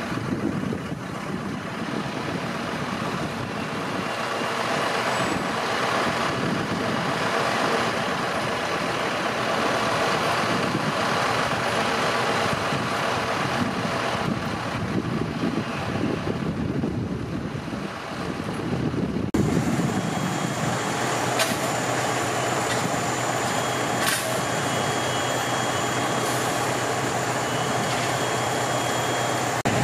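Fire trucks' diesel engines running steadily at a fire scene, a continuous rumble. About two-thirds of the way through, the sound cuts to a steadier engine hum with a faint high whine and a few sharp clicks.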